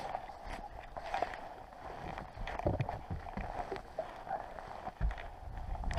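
Knocks, clicks and rubbing from a camera being grabbed and moved about on a fishing boat, with a sharp click at the very start, over a steady background of water and boat noise.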